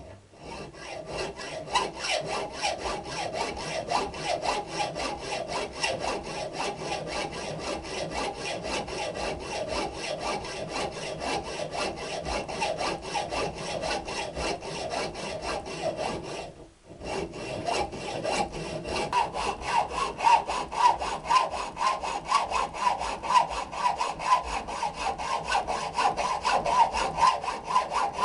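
Hand saw cutting through a steel motorcycle exhaust pipe in steady back-and-forth strokes, pausing briefly about two-thirds of the way through before carrying on.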